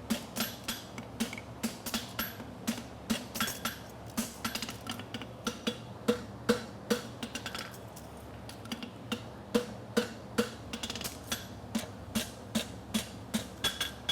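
Hand hammer striking hot steel on an anvil, about two to three blows a second with a short pause a little past halfway, each blow ringing briefly. The blows are closing up the scarfed seam of a hind draft bar horseshoe ahead of forge welding it.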